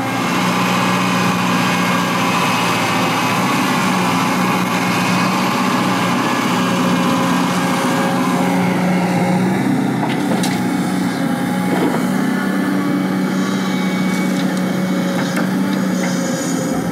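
Hydraulic excavator's diesel engine running steadily as it digs sand and loads it into a truck, with a few sharp knocks in the second half.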